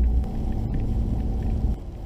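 Steady low rumble of a vehicle driving on a gravel road, engine and tyre noise with a faint hum, which drops suddenly to a quieter rumble near the end.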